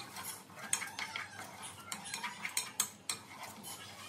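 A metal spoon stirring dry red lentils and split urad dal in a metal pot, with irregular clinks and scrapes of metal on metal.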